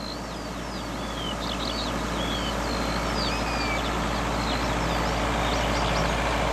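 Farm tractor engine running steadily as the tractor works the field, growing louder as it draws near, with several birds chirping and whistling over it.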